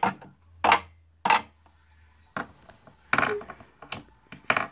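Sharp taps and knocks against a wooden shelf, roughly one or two a second, with a quick flurry of them about three seconds in.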